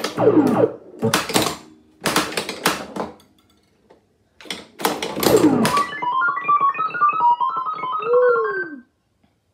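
Pinball machine in play: the ball and coils knock sharply several times, each hit set off with a falling-pitch electronic sound effect from a Williams sound board. About six seconds in comes a fast run of stepping electronic beeps, ending in a swooping tone, which cuts off suddenly just before the end.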